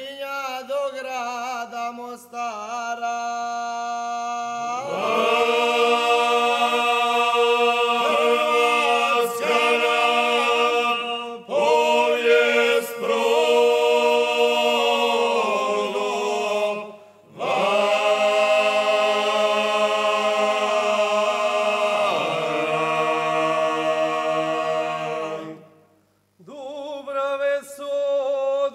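Male folk vocal group singing a cappella in Herzegovinian style. One voice leads alone, then the whole group comes in about five seconds in on long held chords, with three short breaks between phrases.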